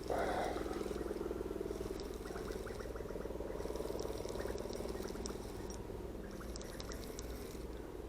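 Fishing reel buzzing with a rapid low rattle while a hooked fish is played. It is loudest at the very start, then goes on steadily.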